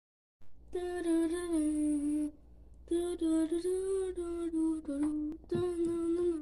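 A single voice humming or singing a wordless tune in three long held phrases, the notes sliding gently up and down.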